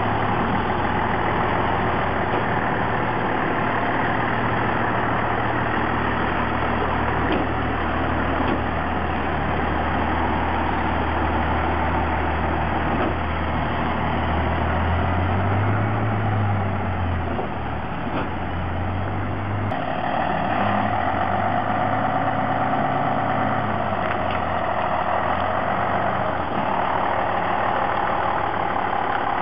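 A truck engine running steadily. Its pitch rises and falls briefly a little past halfway, and its sound shifts at about two-thirds of the way through.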